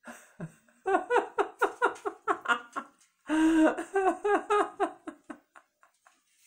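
A person laughing: a quick run of high-pitched 'ha-ha' bursts, about five a second, then a longer held laugh about three seconds in, trailing off into a few softer bursts.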